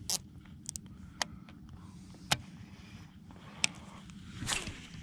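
A few sharp, isolated clicks and knocks over a low steady rumble, with a brief louder swish near the end.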